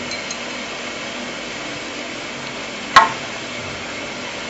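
Steady background hiss with a single sharp click about three seconds in.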